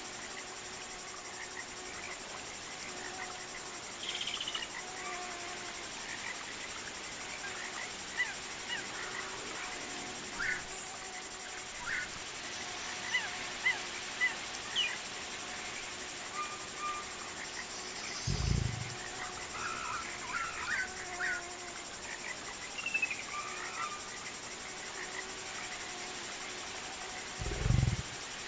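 Jungle ambience: a steady high drone of insects with scattered short bird chirps and calls, and two short, deep growls from a large animal, one about two-thirds of the way through and one near the end.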